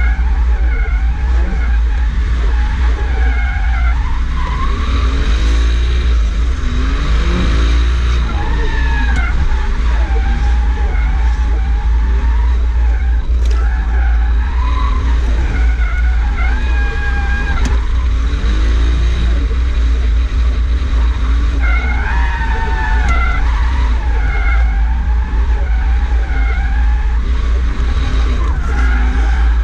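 Toyota JZX100's straight-six engine, heard from inside the cabin, revving up and down again and again as the car is driven through drifts, over a constant deep rumble.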